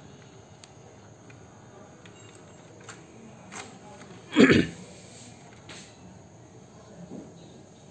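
A short cough-like throat sound about four and a half seconds in. Around it, a few faint clicks from the Kenwood SG-5MD mini stereo while its CD changer reads the disc's table of contents and the volume is turned up.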